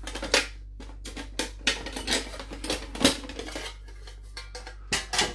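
Aluminium mess tin being handled and opened, its lid and folding wire handle clinking and clattering in a string of sharp metallic knocks.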